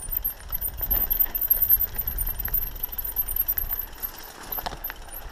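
Mountain bike rolling down a rocky dirt trail: tyre noise with many small clicks and rattles over the bumps, and a low wind rumble on the microphone, heaviest in the first two seconds or so.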